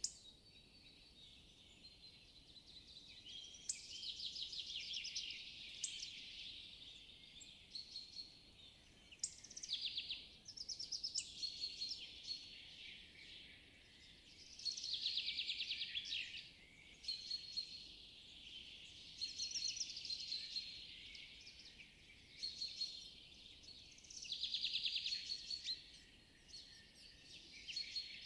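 Faint birdsong: trilled phrases every couple of seconds, with short repeated high notes between them, over a steady high hiss of outdoor ambience.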